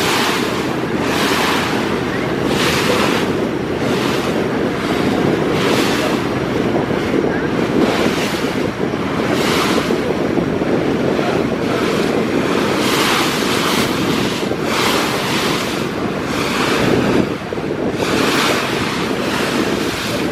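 Churning river water splashing and rushing past passenger launch hulls in surges about every one and a half seconds, with wind buffeting the microphone over a steady low boat-engine drone.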